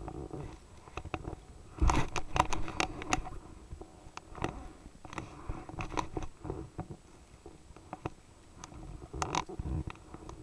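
Kayak paddling close to the microphone: splashing water and sharp clicks and knocks from the paddle and hull come in clusters. The busiest cluster is about two seconds in and another comes near the end.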